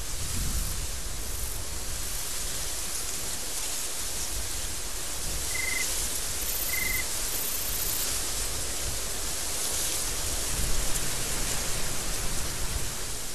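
Desert storm wind blowing with a steady hiss, with low gusts buffeting the microphone about half a second in and again from about ten seconds in.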